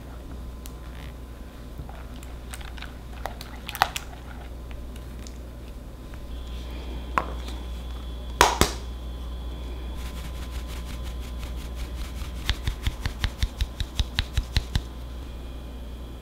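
Whisk stirring cheesecake batter in a glass bowl with a few light clicks. About halfway through comes a sharp knock, then a run of quick taps, about five a second, as a stainless mesh sieve is tapped to sift flour over the batter.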